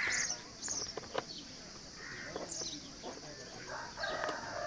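Birds calling: repeated short high chirps that fall in pitch, mixed with shorter, lower calls.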